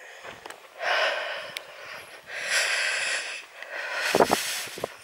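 A person breathing heavily close to the microphone while walking: two long breaths about a second each, then a few shorter, softer ones near the end.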